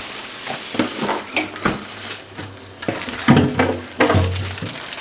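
Printer packaging being handled: rustling and crinkling of plastic, cardboard and styrofoam, with frequent sharp clicks and knocks.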